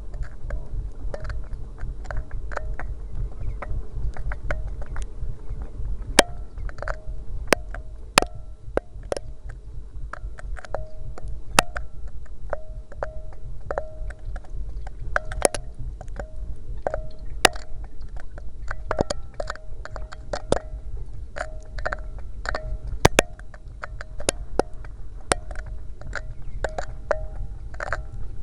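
A keychain camera's own microphone inside a 4-inch PVC well casing as the camera is lowered, with a steady low rumble and irregular clicks and knocks as the camera and its line bump and scrape against the pipe wall. Many of the knocks ring briefly.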